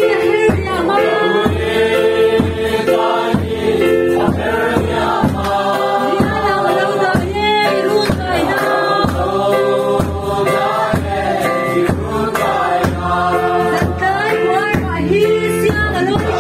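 A crowd singing a hymn together in chorus, with a steady regular beat underneath.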